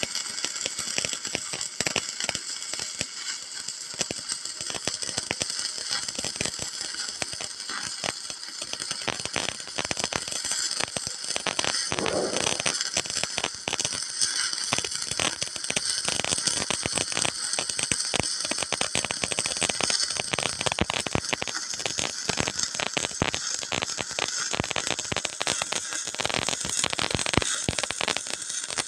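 Electric arc welding: a steady, dense crackle and hiss of the arc.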